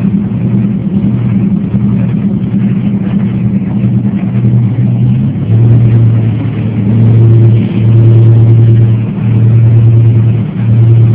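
Boat's engine running steadily with a loud low drone; the hum pulses on and off at first, then holds in longer stretches from about halfway.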